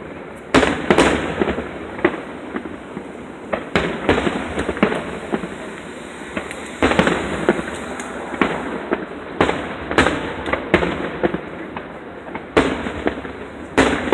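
Fireworks going off: a string of sharp bangs every second or few, several followed by crackling.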